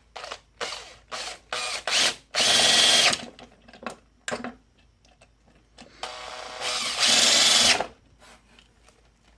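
Handheld power driver running screws into a chainsaw crankcase: several short trigger blips, then two longer runs with a steady motor whine, about two seconds in and again around six seconds in.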